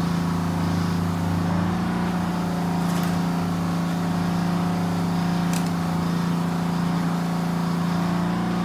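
A steady, even mechanical hum from a running motor, unchanging in pitch, with two short light clicks about three and five and a half seconds in.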